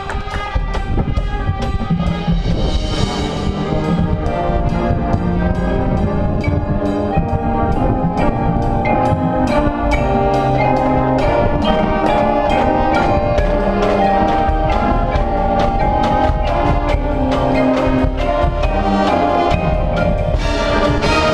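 Marching band playing: brass over drums and percussion.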